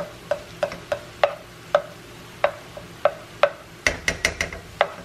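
A spoon knocking and scraping against a stainless steel skillet while stirring fried cabbage and sausage: a sharp knock about every half second, then a quick run of knocks with a dull thump about four seconds in.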